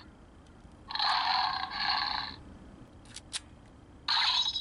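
Beast-X King Morpher toy's small speaker playing a harsh, hissy electronic sound effect for about a second and a half. Two quick plastic clicks follow as a Morph-X key is pushed into the morpher, and another burst of the toy's sound comes just before the end.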